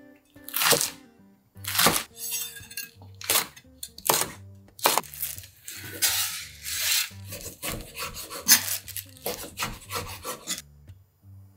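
Chef's knife cutting green onion and raw beef on an end-grain wooden board: a run of sharp cutting strokes with rubbing and scraping between them, and a crinkly rustle about halfway through as meat is tipped off an aluminium foil tray. Soft background music with a steady bass line runs underneath, and the cutting stops shortly before the end.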